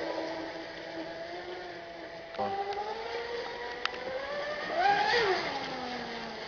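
Engine of a large 8.8 PS RC racing catamaran running, with a steady whine that gets suddenly louder about two and a half seconds in. Its pitch then climbs steeply to the loudest point about five seconds in and drops away again as the boat speeds up and passes. A single sharp click just before four seconds in.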